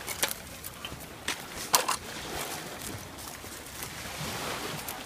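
Footsteps and scuffs on a sandy shore littered with dry reeds and driftwood, with a few sharp clicks and knocks, over a soft wash of small waves at the water's edge.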